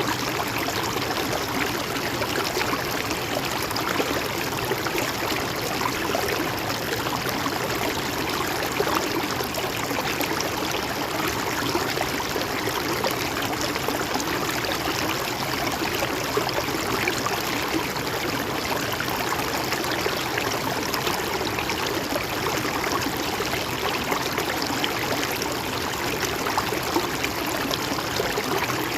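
Mountain stream water flowing and trickling over rocks, a steady even rush.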